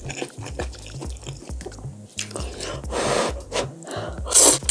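Ramen noodles slurped up from spicy stew broth, with a loud wet slurp near the end. Before it come small chewing and wet mouth clicks.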